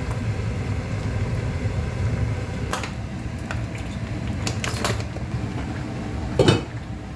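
Cookware being handled: a few short knocks and clinks over a steady low rumble, the loudest knock about six and a half seconds in.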